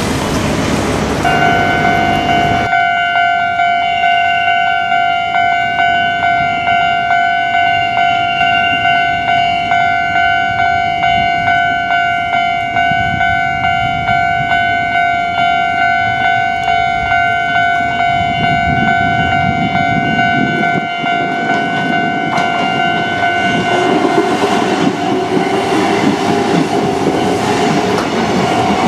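Japanese level-crossing warning bell ringing in steady, evenly repeated strokes, starting about a second in and stopping a few seconds before the end. A Kintetsu electric train approaches under it and runs through the crossing, with a rising rumble and wheel clatter near the end. A road vehicle passes at the very start.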